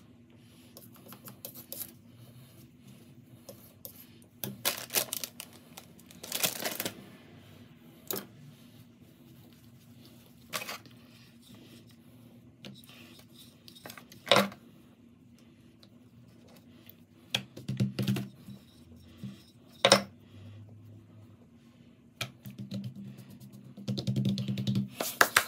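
Irregular clicks, taps and light knocks from things being handled and set down at close range, with a few sharper knocks.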